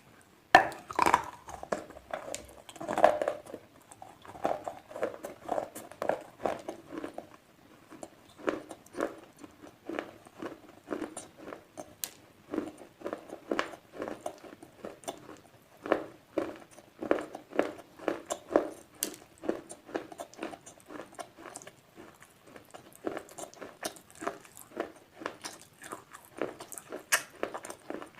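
Slate pencils being bitten and chewed close to the microphone: a steady run of sharp, dry crunches, a few a second, with the loudest bites near the start and about three seconds in.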